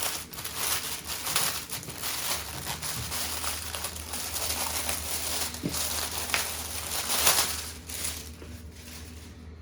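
Plastic packaging rustling and crinkling as the accessories that come with a chest freezer are unwrapped and handled, going on unevenly and dying down near the end.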